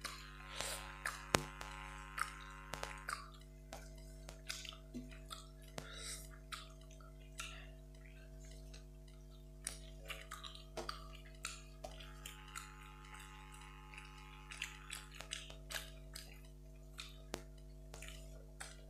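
Eating by hand from metal plates: fingers mixing rice and curry on the plates, with chewing and lip-smacking heard as many short, irregular clicks and smacks. A steady low hum runs underneath.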